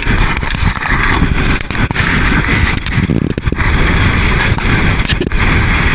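Steady rumble of a moving vehicle with wind buffeting the microphone, heard from its open cargo bed, with several sharp knocks from the bed jolting over the road.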